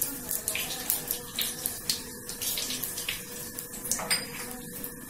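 Panch phoron seeds frying in hot oil in a steel kadai: a steady sizzle with scattered sharp crackles as the seeds pop and splutter.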